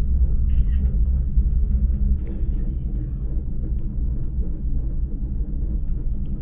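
Steady low rumble inside a moving Bridger Gondola cabin as it travels along the cable, with a few faint light ticks.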